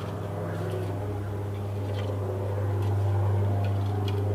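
A steady low mechanical hum, like a motor or engine running, growing slightly louder, with a few faint clicks over it.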